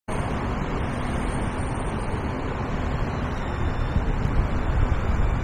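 City street traffic noise, a steady wash of passing vehicles, with wind buffeting the microphone.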